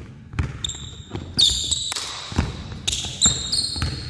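A basketball dribbled on a hardwood gym floor, bouncing irregularly several times. Sneakers give short, high squeaks on the wood as the players cut, about halfway through and again near the end.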